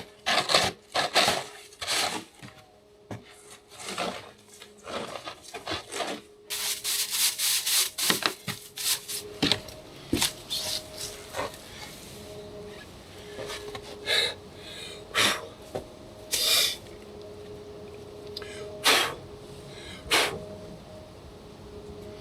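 Shovel scraping and digging through snow in irregular strokes, clearing footing on a steep, slick slope.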